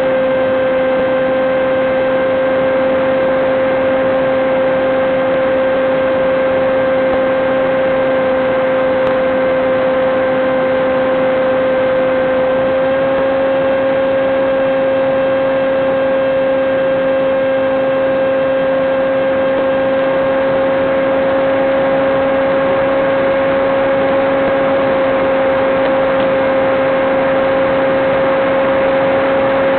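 Electric motor and propeller of a Teksumo flying wing running at a steady throttle, heard through the FPV video link's audio: one steady whine over hiss, the pitch shifting only slightly twice.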